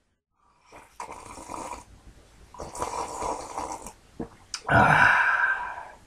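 A person making three rough, breathy vocal noises, each about a second long, the last one the longest and loudest.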